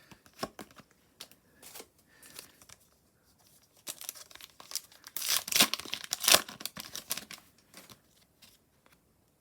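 A foil trading-card pack being torn open and its wrapper crinkled, with a few light rustles and clicks first and the loudest tearing and crinkling from about four seconds in to about seven and a half seconds in.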